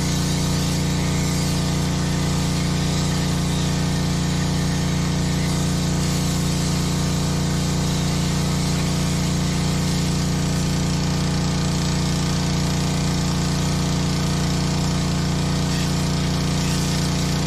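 Honda gasoline pressure washer running at a steady speed, with the constant hiss of the high-pressure water spray.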